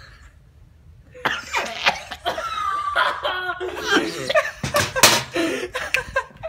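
A teenage boy coughing and sputtering on a mouthful of ground cinnamon, the choking cough of the cinnamon challenge, with friends laughing. It breaks out about a second in and goes on hard to the end.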